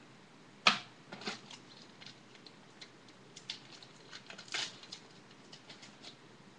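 Trading cards and packs being handled at a table, with a sharp click just under a second in, then scattered light clicks and rustles.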